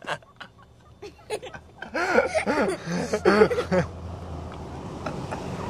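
People laughing in a short run of rising-and-falling bursts about two seconds in, after a quiet start with a few faint clicks. A low steady hum comes in as the laughter ends.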